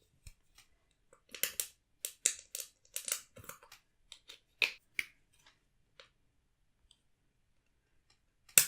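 Glitter glue pens being squeezed out into a bowl of slime glue: a run of small clicks and crackles for a few seconds, then a pause and one sharp knock near the end.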